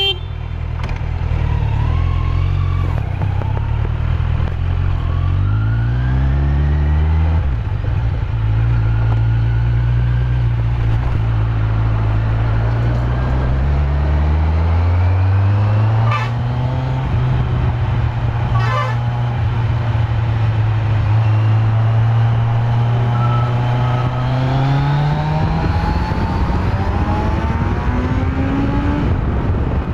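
Kawasaki Z900's inline-four engine through its stock exhaust, heard from the rider's seat. It pulls up in pitch, drops at a gear change, then holds steady and climbs again as the bike accelerates and cruises.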